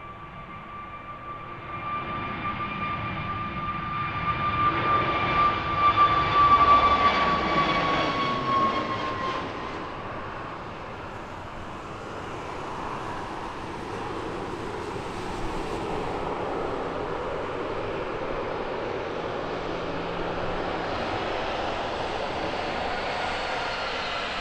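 Aircraft engines passing close by with a high whine that grows to its loudest about six or seven seconds in, then drops in pitch as the plane goes past, settling into a steady engine rumble.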